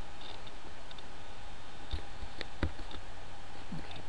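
A few computer mouse clicks, scattered through the second half, over a steady background hiss and low hum.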